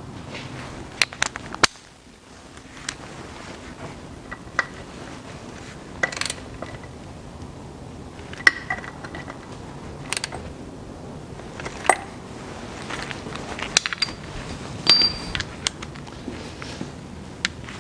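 Scattered metal clicks and clinks from a ratchet wrench and socket working the bolts of the CVT's external oil filter bracket, a few of the clinks ringing briefly.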